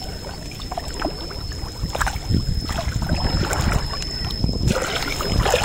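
Muddy water sloshing and splashing as a person wades through shallow water, in irregular surges that grow louder in the second half.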